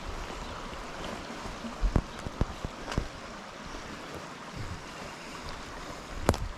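Footsteps through dry leaf litter and sticks, with a few sharp crackles and snaps, the loudest near the end, over a steady hiss of wind on the microphone and creek water.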